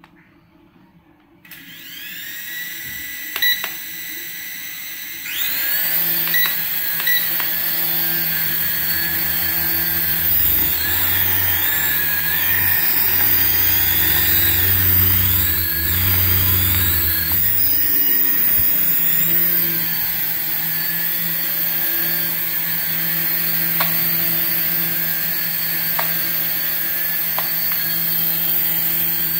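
Small electric motors and coaxial rotor blades of a 3.5-channel RC toy helicopter spinning up: a whine starts about a second and a half in and grows louder at about five seconds. The pitch rises and falls between about ten and nineteen seconds as the throttle is worked, then the whine holds steady while the helicopter hovers.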